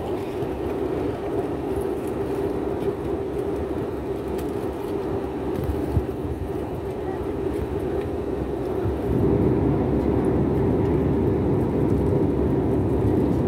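Steady cabin roar of a jet airliner in flight, heard from a window seat beside the wing's turbofan engine, with a low hum running through it. The noise steps up and grows deeper about nine seconds in, and there is one small click near the middle.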